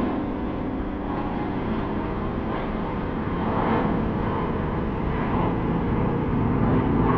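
Steady rushing noise of jet airliner engines.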